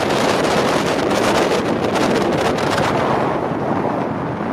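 Wind rushing and buffeting over the microphone from a vehicle moving at highway speed, a loud steady rush that softens slightly near the end.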